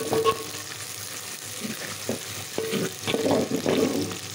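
Sliced onions sizzling in hot oil in a metal pot, stirred with a spatula that scrapes against the pot now and then. The onions are being fried until they turn light brown.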